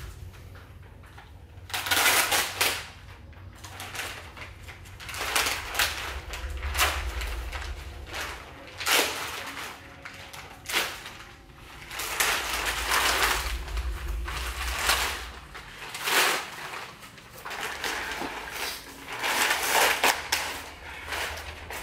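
Black plastic sheeting crinkling and rustling in repeated irregular bursts as it is handled and pulled, over a steady low hum.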